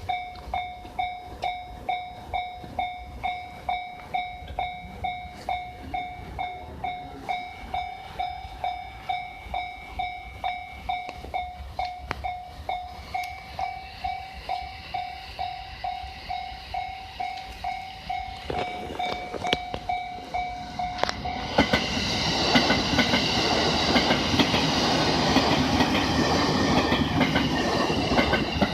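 Level-crossing warning bell ringing a steady repeated ding, a little under two strokes a second. From about 18 seconds in, a freight train approaches. From about 21 seconds in, the EH500 electric locomotive and its empty ore wagons pass close by: loud rumble of wheels on rail with high-pitched wheel squeal, and the bell is no longer heard over it.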